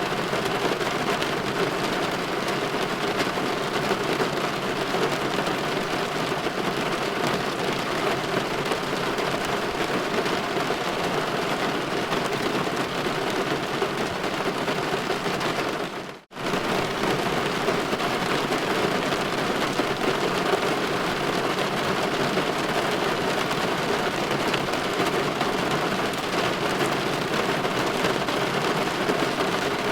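Steady light rain pattering on a window pane, an even hiss with no distinct thunder. It drops out for a split second about halfway through, then carries on as before.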